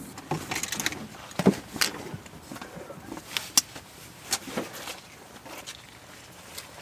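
Rustling of winter clothing and fishing gear being put on and strapped up, with scattered clicks and knocks, the loudest about a second and a half in.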